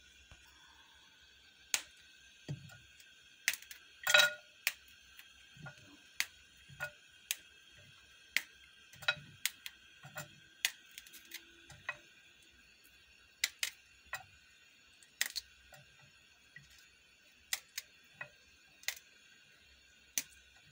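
Cauliflower being broken into florets by hand with a small knife over a clay bowl: an irregular string of sharp snaps and clicks as stems are cut and florets break off and drop into the bowl, the loudest about four seconds in.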